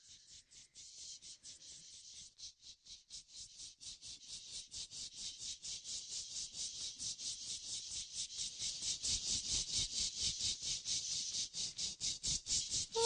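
Rhythmic rattling, about five short strokes a second, fading in and growing steadily louder.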